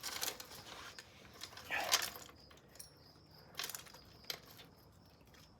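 Bicycle chain and rear wheel clinking and rattling as the chain is fitted onto the sprocket, a handful of scattered metal clinks with the loudest about two seconds in.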